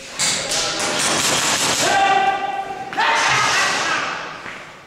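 Airsoft guns firing in rapid bursts, with players' voices shouting over them, in two loud stretches separated by a short lull.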